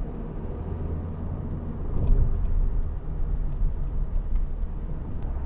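Cabin noise of a Mazda2 with the 1.5 L SKYACTIV-D inline-four turbo-diesel on the move: a steady low drone of engine and tyre road noise, which the driver finds loud compared with the quiet powertrain. A brief louder swell comes about two seconds in.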